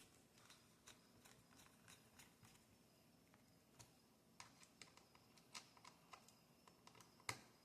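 Faint, scattered small clicks and taps of hands handling the opened laptop's internal parts, with one sharper click near the end.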